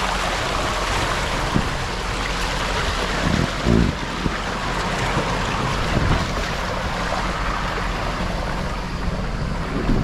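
Steady rush of water streaming down an open water slide under an inflatable raft tube, mixed with wind noise on the microphone. A dull thump comes a little before four seconds in and another around six seconds.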